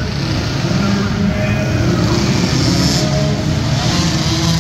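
Several small 50–90cc youth ATV engines running and revving as the quads race around a dirt oval inside an indoor arena.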